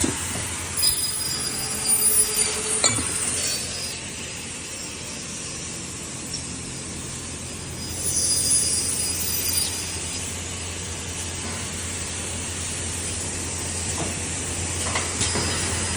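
Automatic aluminium-profile CNC machine running: a steady low hum throughout, with two spells of high-pitched whine and hiss, one about a second in and one about eight seconds in, and a few sharp clinks and knocks.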